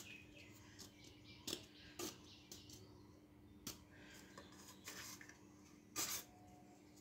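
Kitchen knife blade cutting and scraping through PVC pipe: a handful of short, irregular scratchy strokes, the loudest about six seconds in, over a faint steady hum.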